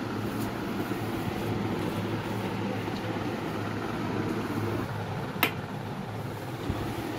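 Steady low electrical hum with a single sharp click about five and a half seconds in, a wall switch being flipped to power the flour mill.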